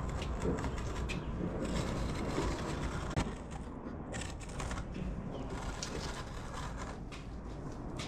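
Outdoor-indoor carpet being cut to size, with irregular scraping and crunching strokes.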